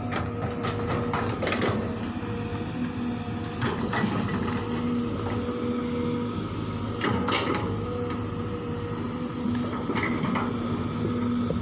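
Sumitomo hydraulic excavator's engine running steadily while its bucket digs into rocky nickel ore, with scattered clanks and knocks of bucket and rock.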